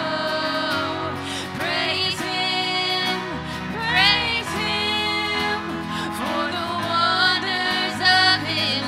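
Live worship music: women singing a slow worship song over strummed acoustic guitar.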